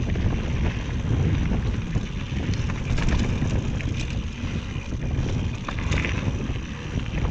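Wind buffeting an action camera's microphone as a mountain bike rides along a trail, a loud rumbling roar, with scattered clicks and rattles from the bike over the ground.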